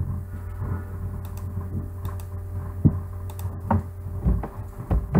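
Scattered clicks and light knocks of a computer mouse and keyboard, a few isolated ones spread over several seconds, the clearest about three seconds in, over a low steady hum.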